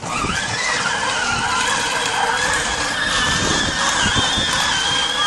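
Electric motors of a battery-powered ride-on toy jeep whining steadily as it drives, the pitch wavering slightly, over a rough rumble from the wheels.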